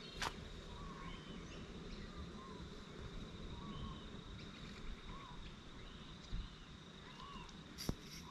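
Riverbank ambience: a steady high-pitched insect drone with short chirping bird calls repeating every second or so. Two sharp clicks, one just after the start and one near the end.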